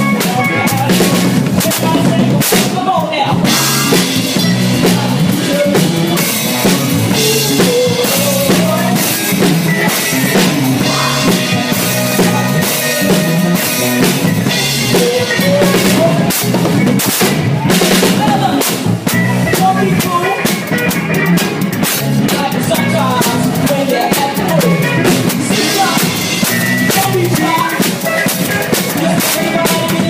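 Drum kit played hard, heard from right beside it: cymbal crashes and wash over snare and bass drum hits, loud and without a break. Pitched parts from other instruments or a voice run underneath, as in a live band.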